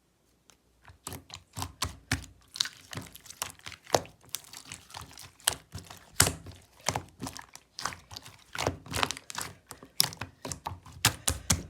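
Clear slime being squished and poked by hand, giving irregular clicks and pops, a few each second, starting about half a second in.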